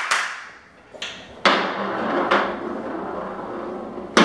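Foosball table in play: a few sharp clacks of the ball being struck by the plastic players and hitting the wooden table. The loudest come about a second and a half in and just before the end, with a steady rumble of the ball and rods between them.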